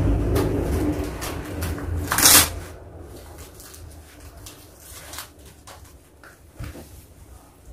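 Fabric strap of a posture-corrector back brace rustling as it is pulled tight around the waist and fastened, with one sharp rasp about two seconds in, then only faint small rustles and clicks.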